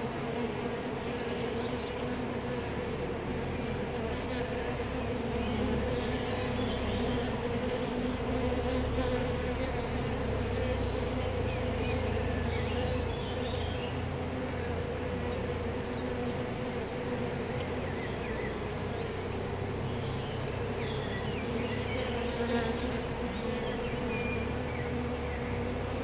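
Honeybees buzzing at the entrance of a top-bar hive: a steady hum of many wings as bees fly in and out close by.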